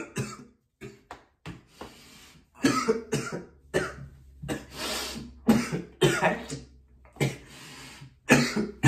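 A man coughing in a long fit of short, repeated coughs, with a brief lull about seven seconds in. It is the coughing that follows holding a large cannabis vape-pen hit (a 'blinker').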